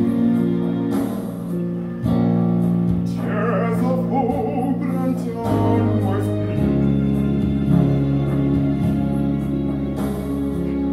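Male vocal quartet singing a cappella in close four-part harmony, in a classical choral style with an African character. The voices hold sustained chords that change together several times.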